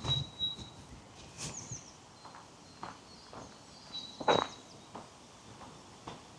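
Footsteps of a person walking on a path, irregular soft steps with a louder one about four seconds in, while a bird gives a thin high whistled note at the start and again about four seconds in, with a few brief chirps between.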